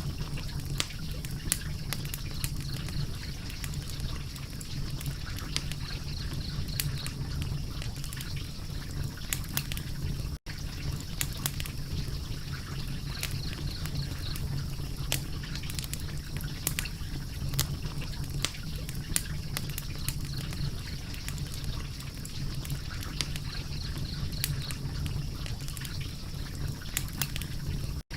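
Wood fire crackling steadily, with many sharp irregular pops over a constant low rumble; the sound cuts out for an instant about ten seconds in.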